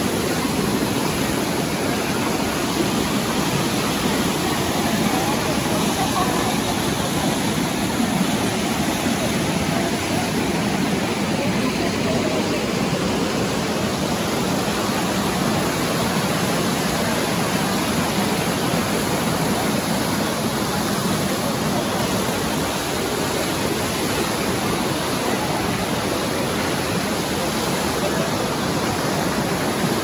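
Steady rush of hot-spring water pouring down the travertine terrace cascades, with bathers' voices mixed in.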